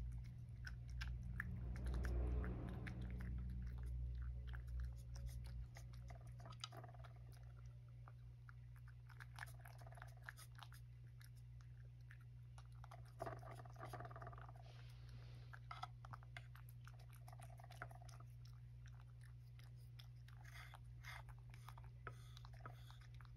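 A domestic cat eating tuna cat food from a tray, with irregular small wet clicks of chewing and licking. A steady low hum runs underneath, with a louder low rumble in the first few seconds.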